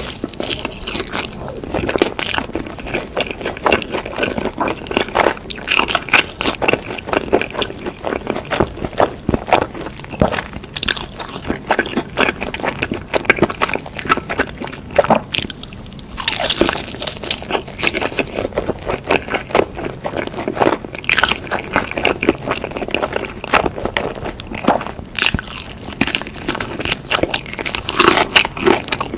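Close-miked eating of noodles and chicken: continuous wet chewing with crunchy bites and mouth clicks. Louder bites come every few seconds.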